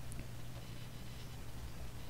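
Quiet room tone: a faint steady low hum with light hiss, and no distinct sound events.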